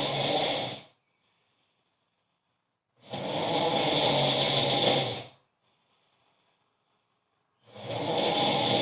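A man snoring very loudly in long snores of about two seconds each, one ending about a second in, another in the middle and a third starting near the end, with near-silent pauses between.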